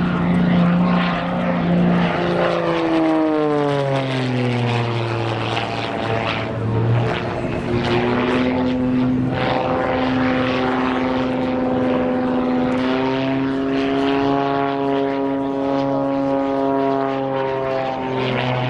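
Extra 330 SC aerobatic race plane's piston engine and propeller running at high power during aerobatics. Its pitch drops about two to five seconds in, then holds steady.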